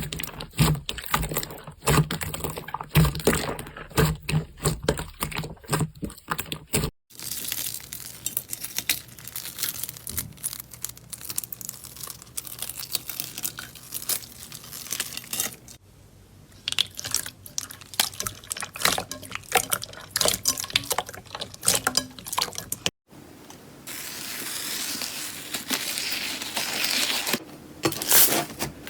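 Slime being squished and stretched by hand, with dense crackling, popping clicks and wet sticky sounds. It cuts abruptly from one clip to another twice.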